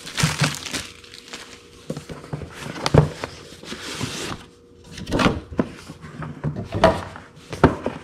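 Cardboard product packaging being handled on a hard floor: plastic wrap crinkling, the box sliding and rustling, and a handful of light knocks as the box is stood up and set down.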